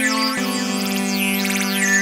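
Electronic background music: sustained synthesizer chords that change a little after half a second in, with sweeping high synth glides over them.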